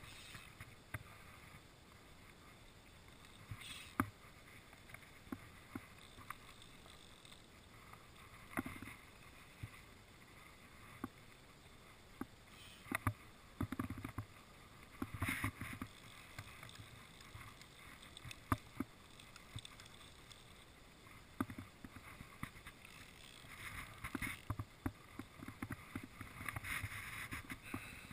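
Faint water lapping, with scattered light clicks and knocks from handling the fly rod and reel. The knocks grow busier near the end.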